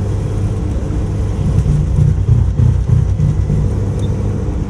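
1999 Ford Mustang's 3.8-litre V6 running under way with a low, choppy exhaust burble, growing louder and rougher a little past a second and a half in before easing near the end.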